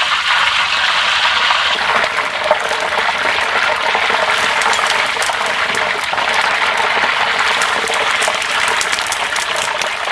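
Hot frying oil sizzling and crackling as it is ladled over a whole chicken held in a wire basket above the wok. The sizzle is steady, and the sharp crackles grow thicker in the second half.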